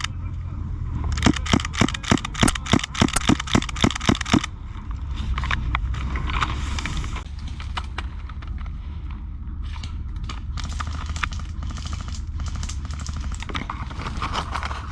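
Airsoft guns firing: a fast string of sharp shots, about five a second, for roughly three seconds, then scattered single shots.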